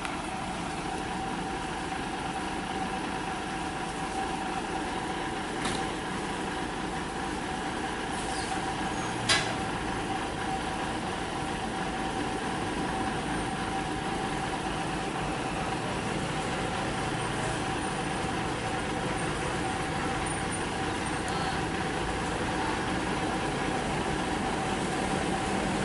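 Isuzu heavy truck's diesel engine running steadily with a held whine, the level slowly rising toward the end. A single sharp click about nine seconds in.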